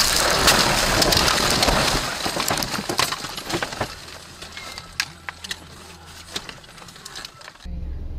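A car crashing off the road into dense bushes and trees. A sharp impact is followed by about two seconds of loud crashing and scraping as branches and foliage hit the body and the windshield, which cracks. It then thins to scattered snapping and crackling of branches.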